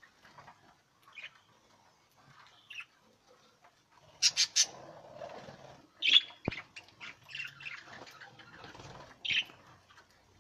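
A flock of English (show) budgerigars chirping and squawking in short, scattered calls. There is a quick run of three calls about four seconds in, the loudest call just after six seconds, and another sharp call after nine seconds.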